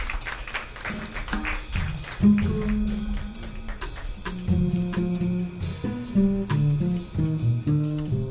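Live jazz: a double bass plucked pizzicato, playing a line of changing low notes, with light cymbal strokes from the drum kit behind it.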